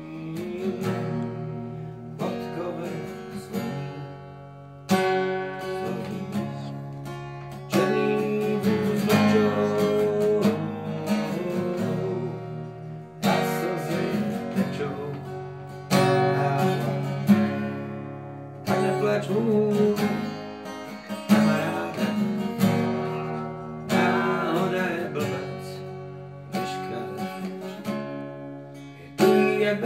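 Acoustic guitar strummed, with a strong new chord struck about every two and a half to three seconds, ringing on between strikes.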